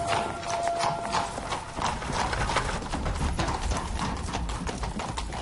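Horses' hooves clip-clopping on cobblestones in quick, irregular strokes, over the low rumble of a horse-drawn carriage's wheels.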